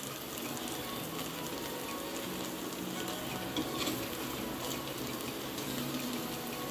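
Steady sizzling hiss from a steel pot of pulao still cooking on a lit gas burner, with a few faint clicks as the rice is served out.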